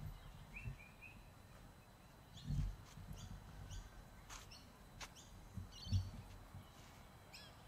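Birds chirping in short, scattered calls. Two low thumps a few seconds apart cut through, the second the loudest sound.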